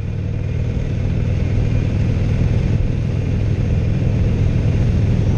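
Air-cooled 1200 cc V-twin of a 2016 Harley-Davidson XL1200CX Roadster on its stock factory pipes, running steadily under way as it is ridden on the road. The rumble picks up slightly in the first couple of seconds.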